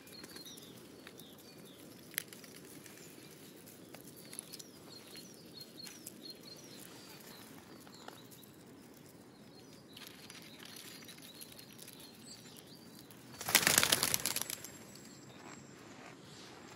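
Quiet outdoor background with scattered small clicks and faint, short high chirps. About 13 seconds in there is a loud scratchy rustle lasting about a second.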